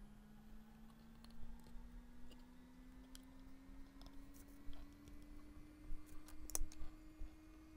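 Light, scattered clicks and taps of metal tweezers and miniature bricks against a clear plastic case, about half a dozen, the loudest cluster near the end. A faint steady hum slowly rising in pitch runs underneath.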